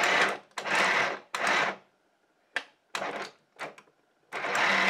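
Battery-driven plastic model engine (Visible 2.3 litre turbo kit) whirring and clattering as its motor turns the pistons, belt and fan: about six short starts and stops, then running steadily from about four seconds in.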